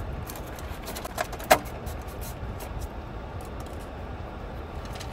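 Steady low rumble of a car cabin, with a few sharp plastic clicks and taps as a drinking straw is pushed down through the lid of a drink cup; the loudest click comes about a second and a half in.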